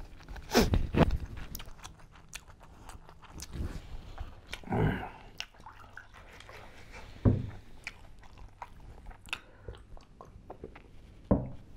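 Close-up chewing and lip-smacking of a man eating curried eggs and chicken by hand, with many small wet mouth clicks and a few louder bites. Partway through, cola is poured from a small bottle into a glass, and a sharp knock follows a little later.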